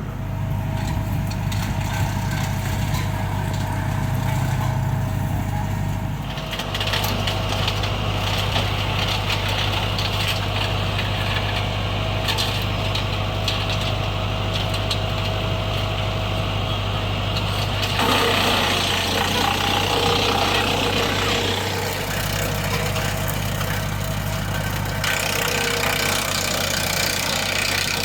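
Engine-driven wood chipper running steadily as garden material is fed through it. The chipping and grinding noise above the engine's hum changes several times, about a quarter of the way in, about two-thirds in, and again near the end.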